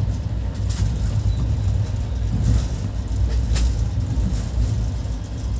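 Steady low rumble of a train, with a few sharp clicks.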